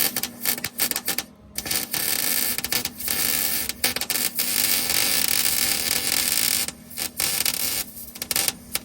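Wire-feed welder arc laying a bead on a muffler hanger: an irregular crackling sizzle in several runs with short breaks, the longest in the middle, stopping near the end.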